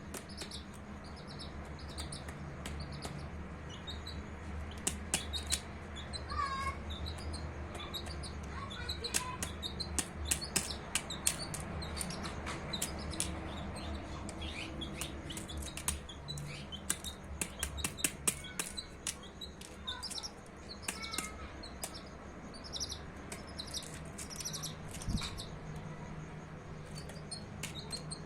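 Baby chicks peeping in short, high, repeated chirps, with many sharp clicks of beaks pecking at food, thickest in the middle. A low steady hum runs beneath.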